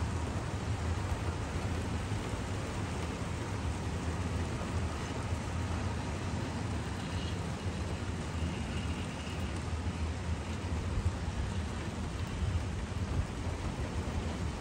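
Container flat wagons of a freight train rolling past: a steady low rumble of wheels on rail with an even hiss over it.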